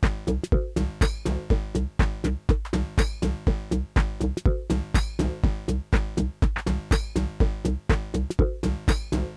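Live techno from hardware drum machines and analog synthesizers: a pounding kick about twice a second under hi-hat-like ticks and repeating synth notes.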